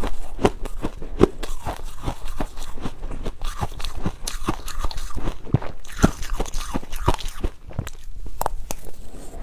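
Ice being bitten and chewed close to the microphone: a dense run of sharp, irregular crunches, several a second.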